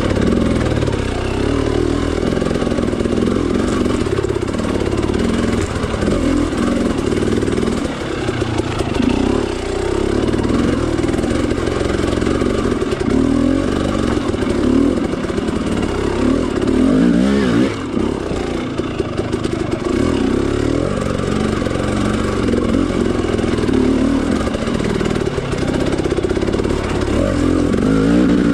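Dirt bike engine pulling the bike up a rough, rutted trail, the revs rising and falling constantly with the throttle.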